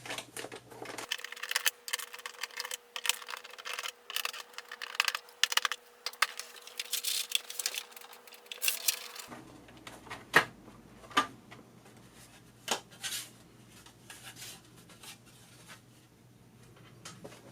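Unicomp Model M keyboard being taken apart: a quick run of small clicks, ticks and scrapes as its plastic case is unbolted and unclipped, then a few separate clicks.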